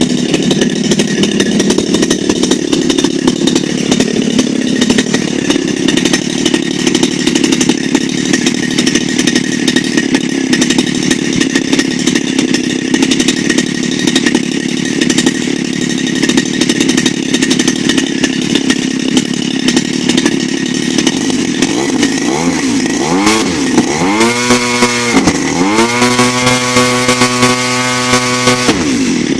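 CRRC Pro GF45i 45cc single-cylinder two-stroke gas engine running on a test stand, idling steadily for about twenty seconds. It is then revved up and down a few times, held at high speed for a couple of seconds near the end, and dropped back before revving once more. It runs strongly on its old carburetor settings after more than a year unused.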